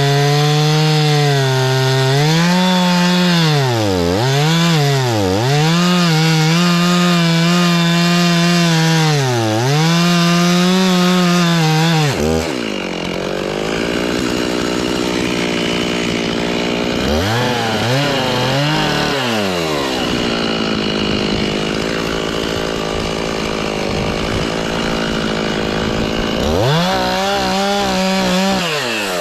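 Chainsaw running at high revs and cutting into a tree trunk, the engine note dipping again and again as the chain bites into the wood. About twelve seconds in the pitch drops and a rougher, noisier cutting sound takes over, and the engine climbs back to full revs near the end.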